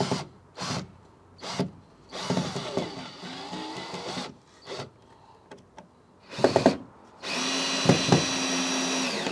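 Cordless drill driving screws into a wooden fence board: a few short trigger bursts, a longer run of about two seconds with the motor speed rising and falling, then a steady run near the end.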